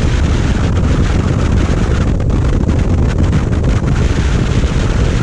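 Wind buffeting the microphone of a camera on a motorcycle riding at highway speed: a loud, steady rush with a heavy low rumble.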